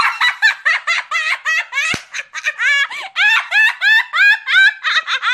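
A woman laughing hard: a long, unbroken run of quick, high-pitched peals, about four or five a second.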